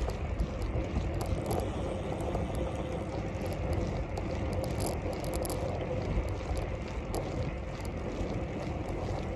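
Bicycle being ridden: steady rumble of tyres and wind, with scattered light clicks and rattles from the bike.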